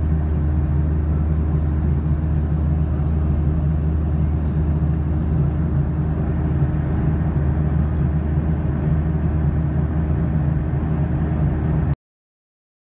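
Steady cabin noise of a jet airliner in flight, heard beside the engine: a loud low drone with a few held low tones under a rush of air. It cuts off suddenly near the end.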